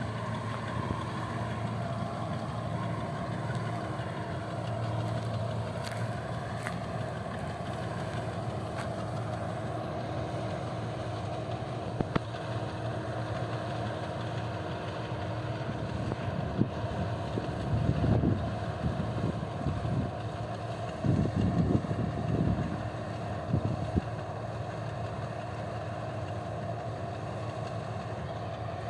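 A motor or engine running steadily with an even hum, with a few louder low rumbles between about 16 and 24 seconds in.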